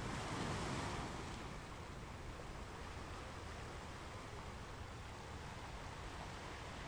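Sea surf washing onto the shore as a steady hiss, with a louder wash in the first second.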